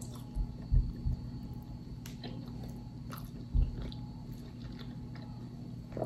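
Close-miked wet chewing and biting on barbecued pork ribs, with soft mouth clicks. A few short low thumps come in the first second and again about three and a half seconds in.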